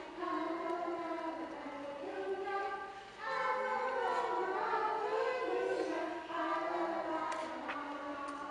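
A group of young children singing a song together in unison, holding sustained notes, with short breaks between phrases about three seconds in and again past six seconds.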